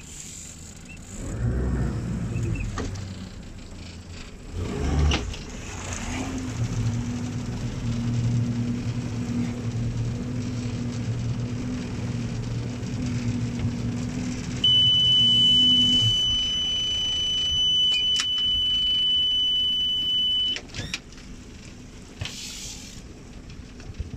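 A small electric motor hums steadily for most of the first two-thirds. A single high, steady electronic beep sounds for about six seconds, overlapping the end of the hum, and cuts off suddenly. A few knocks are heard along the way.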